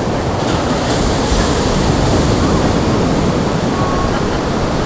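Surf washing onto a beach, a steady rushing noise, with wind rumbling on the microphone. A brighter wash of hiss swells about half a second in and eases off by about three seconds.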